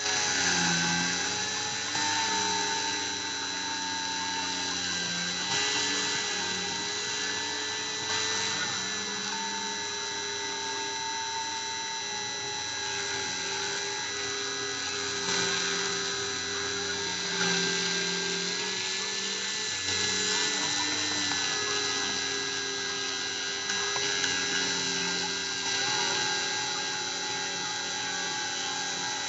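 A Dremel rotary tool on a Cyclone PCB CNC spins with a steady high whine as it cuts into acrylic. Underneath, the machine's stepper motors hum, jumping between pitches every second or two as the axes move along the cutting path.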